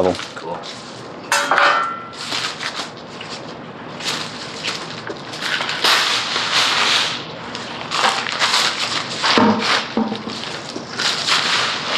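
Compost tipped out of a plastic bucket, sliding and pattering onto a plastic tarp, with the tarp crinkling and rustling underfoot. A single sharp clank comes about a second in.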